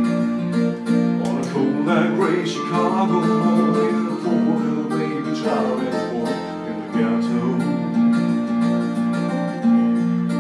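Band music: strummed acoustic guitar over sustained keyboard chords, with a melodic lead line rising and falling in two short phrases.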